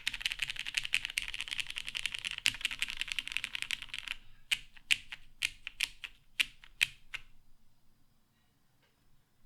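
Mechanical keyboard with lubed vintage Cherry MX Brown tactile switches on an FR4 half plate, with GMK keycaps, typed on rapidly for about four seconds. It then slows to about nine separate keystrokes that stop about seven seconds in.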